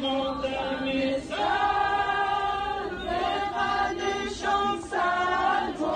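A group of students singing together in unison, a slow mourning or protest song of long held notes.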